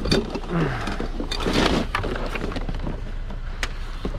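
Rummaging through a pile of discarded items: rustling and scattered clattering knocks, with a brief murmured voice about half a second in.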